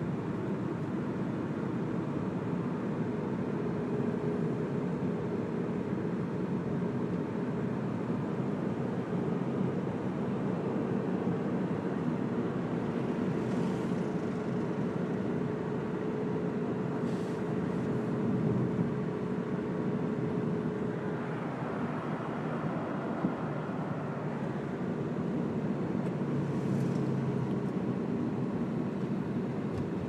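Road noise inside a moving car: a steady rumble of tyres on fresh asphalt and the engine, with a faint steady hum through much of the first two-thirds and a few light clicks.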